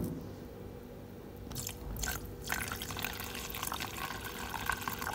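Paint thinner being poured into a graduated mixing cup of textured bumper paint, an uneven trickling pour that starts about a second and a half in.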